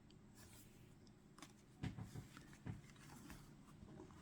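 Near silence: quiet room tone with a few faint, short clicks or taps.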